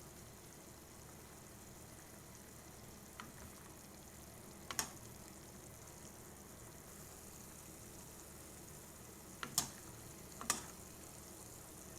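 Faint steady hiss of a pot of soup cooking, with a few sharp clicks, the clearest about five seconds in and twice more later.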